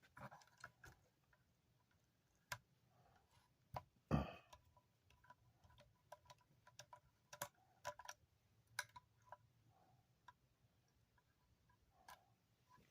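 Faint, irregular clicks and taps of hand tools working on a salvaged electric motor, with a louder knock about four seconds in.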